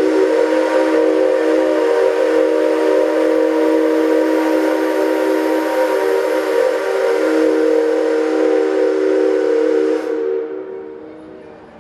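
Whistle of a JNR Class C57 steam locomotive: one long blast of about ten seconds sounding a chord of several pitches over a hiss of steam, then dying away with echo.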